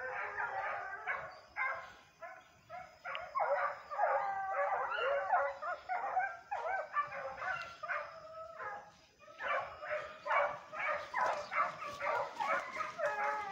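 Hunting dogs barking and yelping in quick, repeated runs, with a brief lull about nine seconds in.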